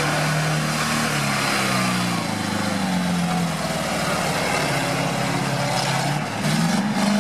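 GAZ-66 truck's engine working hard as the truck drives through deep mud, its pitch rising and falling as the revs change, with a rise and fall in revs near the end.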